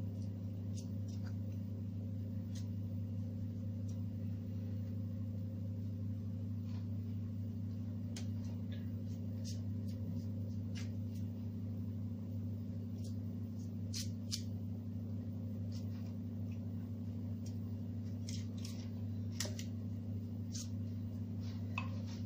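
Scattered light clicks and taps of a utensil against a bowl, as when working a milk-and-egg mixture with a fork, over a steady low hum.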